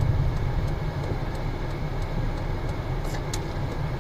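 Steady low rumble of a car driving, heard from inside the cabin through a dashcam, with a few faint ticks about three seconds in.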